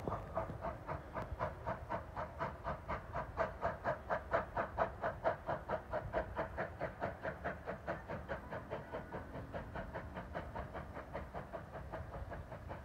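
Steam locomotive chuffing in an even rhythm, about four exhaust beats a second, as it pulls the train away. The beats grow fainter toward the end.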